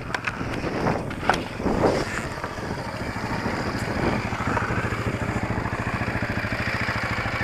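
Dirt bike engine running at low revs as the bike creeps over rocky ground, with several sharp knocks and clatter in the first two seconds, then a steady, even putter.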